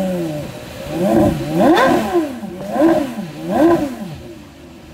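Porsche Carrera GT's 5.7-litre V10 revved while standing still. It comes down from a start-up flare, is blipped four times, the pitch rising and falling sharply each time with the second blip the highest, and settles to idle near the end.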